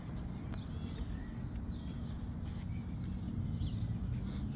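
Birds chirping repeatedly in short calls over a steady low rumble, with a few light clicks.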